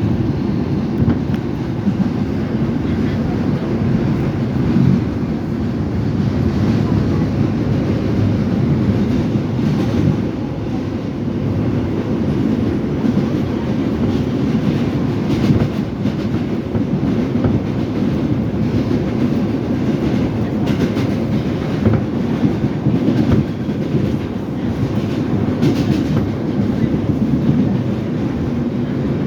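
R142 subway car running at speed, heard from inside the car: a steady, loud rumble of wheels and running gear with scattered clicks from the rails.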